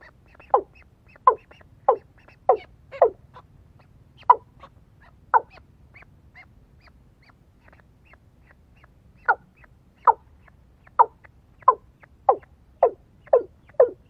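Watercock calling: a series of short notes, each dropping in pitch, about one to two a second. The calls pause for about four seconds partway through, then come back faster near the end.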